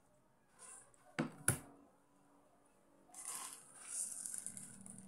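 Two sharp knocks about a second in as a plate is set down on a table. From about three seconds in comes plastic rustling and crinkling as a bagged loaf of sliced bread is handled.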